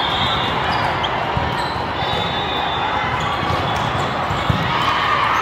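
Ambience of a large hall full of volleyball games: a steady din of many voices, with balls thudding and bouncing on the courts. A sharp smack of a ball being hit comes about four and a half seconds in.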